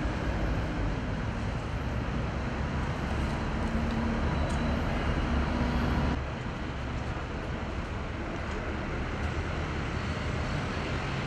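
Street traffic noise: a steady rumble of passing road vehicles, dropping a little in level about six seconds in.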